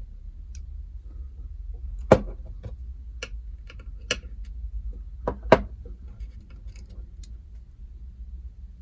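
Small metal parts of a bronze padlock being handled and fitted: scattered sharp clicks and taps of metal on metal, the loudest about two seconds in and again about five and a half seconds in, over a low steady hum.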